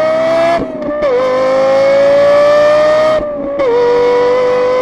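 Lexus LFA's V10 at full throttle near its 9,000 rpm limit: a loud, high engine wail whose pitch climbs steadily in each gear. It breaks off and drops at two quick upshifts, one about half a second in and another just past three seconds.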